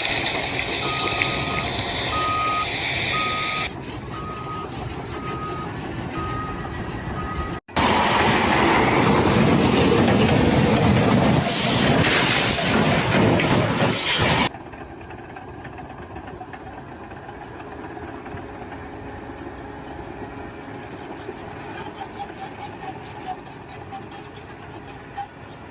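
A vehicle's reversing alarm beeping repeatedly, a little more than once a second, over engine and machinery noise. The sound then cuts to a louder rushing noise for several seconds, and after that to a quieter steady engine rumble.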